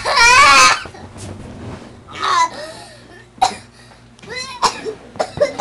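A young boy's loud, wavering cry of pain that breaks off within the first second, followed by a few short sobs and coughs. He is crying over a wound on his ankle that is being treated.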